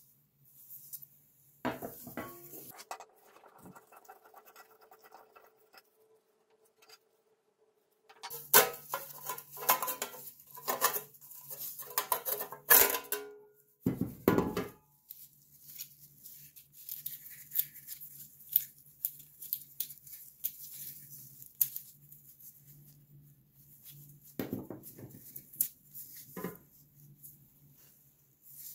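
Metal parts of an old rusted household scale clinking, tapping and scraping as they are handled, in irregular bursts of sharp knocks. A steady low hum runs under most of it.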